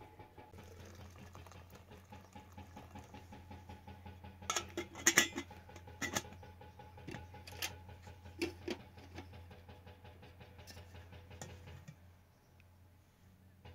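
Clinks and knocks of metal kitchenware being handled, a steel teakettle and a cooking pot, loudest in a cluster about five seconds in, over a steady low hum.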